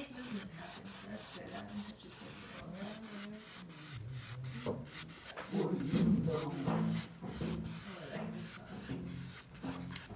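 Irregular rubbing and scratching strokes, repeated many times, with low sustained tones that change pitch underneath.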